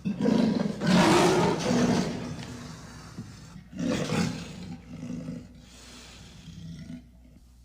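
Deep lion-like growls of a giant big-cat monster sound effect: two loud growls in the first two seconds, another about four seconds in, then a quieter growl that fades away.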